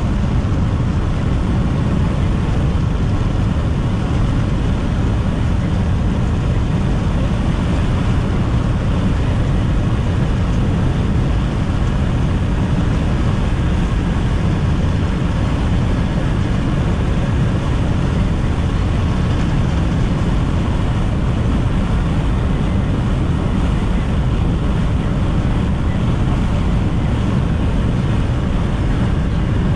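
Steady road and tyre noise inside a car driving at speed, with some wind noise and no separate events.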